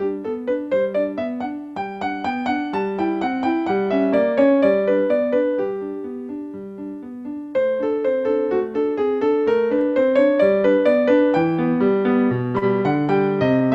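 Solo piano music, melodic notes struck and left to ring, easing off at the end of a phrase about halfway through and then picking up again more fully.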